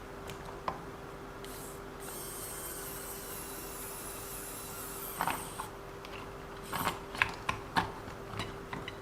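A small electric screwdriver whirring with a high, thin tone for about three and a half seconds while driving a screw into the RC car's drive shaft assembly, then a run of light clicks and taps as small metal and plastic parts are handled.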